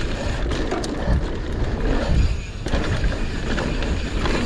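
Mountain bike riding down a dirt trail: wind buffeting the camera's microphone and tyres rolling over dirt, with the bike rattling and a few sharp clicks and knocks over bumps.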